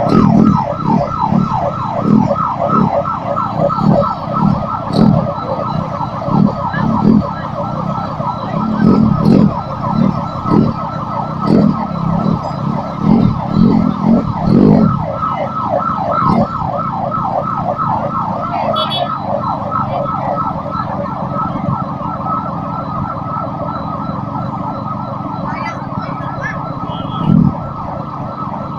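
Electronic siren sounding a fast, repeating falling yelp, several sweeps a second without a break. Under it, for the first half, come low thumps about once or twice a second, with one more near the end.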